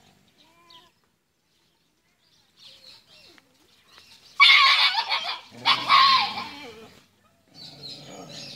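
Stray dogs fighting: two loud bursts of snarling and yelping about halfway through, a second apart, with fainter growling near the end.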